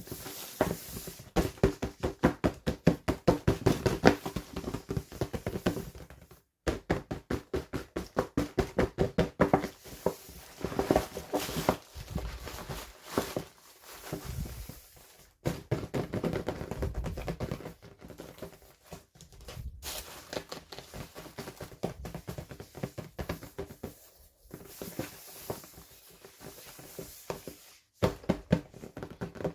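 Hands handling and opening plastic toy packaging: rapid runs of clicking and tapping with a few brief gaps.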